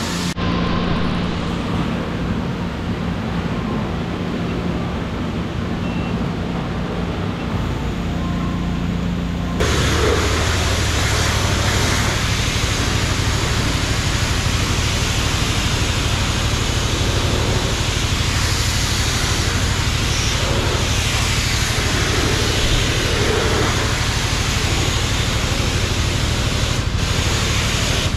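A steady hum, then, almost ten seconds in, a self-service car wash's pressure-washer wand opens with a sudden steady hiss of high-pressure spray rinsing the soap off a car.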